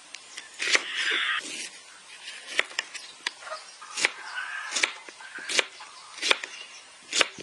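A large kitchen knife slicing through peeled pineapple and knocking down onto a wooden cutting board: a run of sharp chops, roughly one a second.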